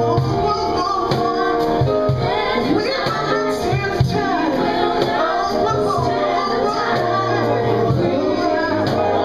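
Live soul-gospel band music: male and female vocalists singing into microphones over sustained chords, with percussion keeping a steady beat.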